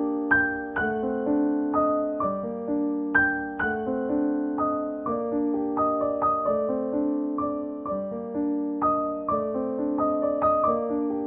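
Background piano music: a gentle melody of single notes and chords at an even, unhurried pace.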